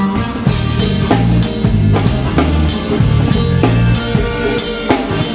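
Live band playing a groove at sound check: a drum kit keeping a steady beat under held bass notes and guitar.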